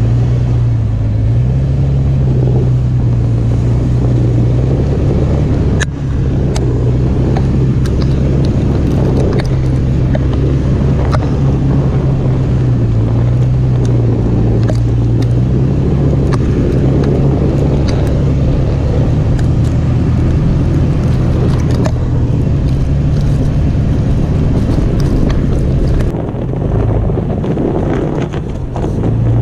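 Toyota FJ Cruiser's 4.0-litre V6 running at low, steady revs while crawling through snow, heard from low beside the front wheel. The tyres crunch through the snow, with scattered sharp clicks of snow and grit striking the underbody.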